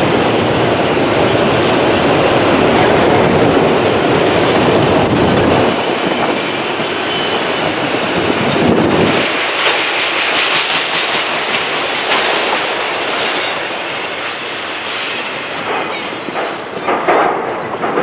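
Autorack cars of a freight train rolling past on the rails, steady wheel noise. The low rumble drops away about six to nine seconds in as the end of the train passes. Wind gusts on the microphone near the end.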